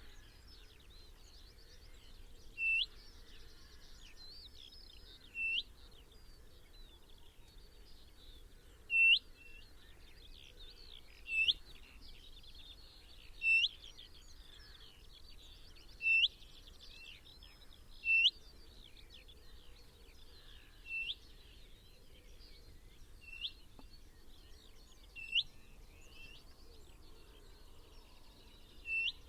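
Birdsong: one bird repeats a short rising call every two to three seconds, about eleven times, over a steady background of other birds chirping.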